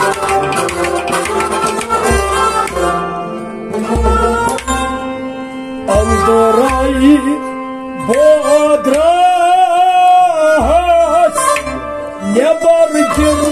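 Kashmiri Sufi song: an instrumental passage of sustained melody over hand-drum strokes, then a male voice comes in singing with vibrato from about six seconds in.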